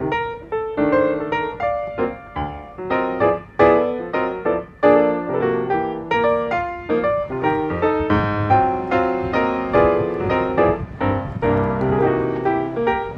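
Background piano music: a steady run of struck notes, several at a time, each one dying away.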